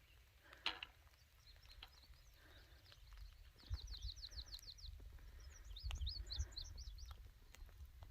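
Faint songbird song: a quick trill of about nine down-slurred notes, then a jumbled twittering phrase a second or so later. Low rumbling thumps sound beneath the song.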